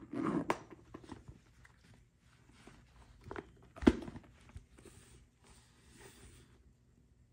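Handling noise from a vintage Louis Vuitton Trouville monogram canvas handbag being opened up by gloved hands: rustling of the canvas and scattered soft knocks, with one sharp knock about four seconds in.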